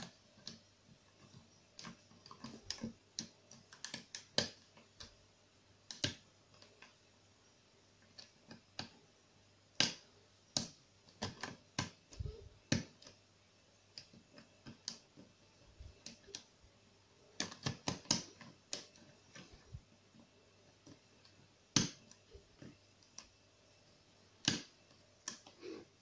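Lock pick and tension wrench working the pins of a brass Arrone cylinder lock: scattered small metallic clicks and taps at an irregular pace, with quicker clusters of clicks a few times.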